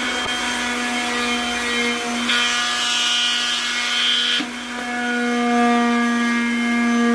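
Corded electric sander running with a steady motor hum. From about two seconds in to about four and a half seconds it grinds louder and rougher as the pad is worked against the wood.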